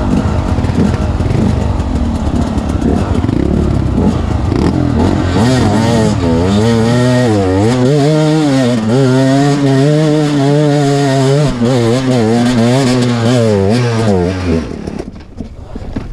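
Two-stroke KTM 250 EXC dirt bike engine revving hard under load, its pitch rising and falling with the throttle. The engine cuts out suddenly near the end.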